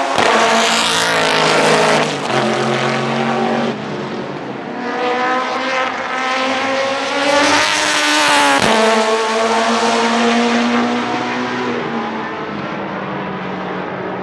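Panoz LMP07 prototype's Mugen 4.0-litre V8 racing engine at speed, heard in several passes: the engine note climbs under acceleration and falls away as the car goes by, with a sudden break about nine seconds in.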